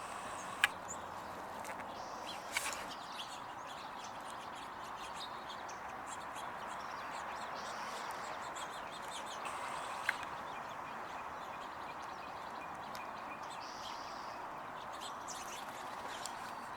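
Faint songbird chirps over a steady outdoor hiss, with a few short sharp clicks.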